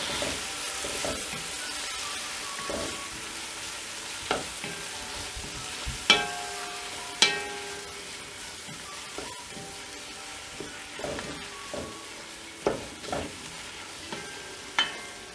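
Onion, tomato and spice masala frying and sizzling in oil in an enamel pot, stirred with a wooden spatula. The spatula scrapes and gives several sharp knocks against the pot, the loudest about six and seven seconds in.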